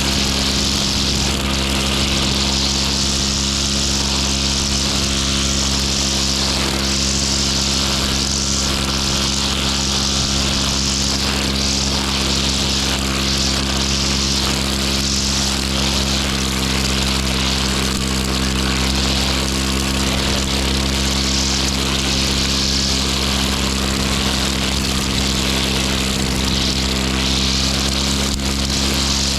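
Petrol grass cutter (brush cutter) engine running steadily at high speed, with an even whine.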